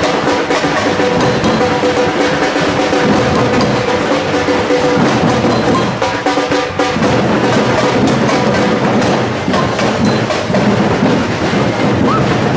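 Live drumming and percussion from a parade band, with other instruments playing along.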